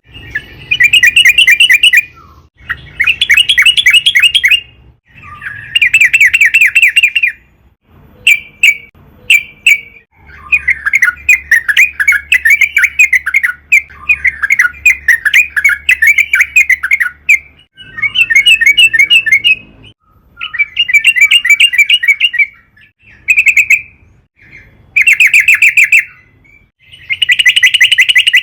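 Yellow-vented bulbul (trucukan) singing loud, rapid bubbling phrases. The phrases come in bursts of about two seconds, with short pauses between them.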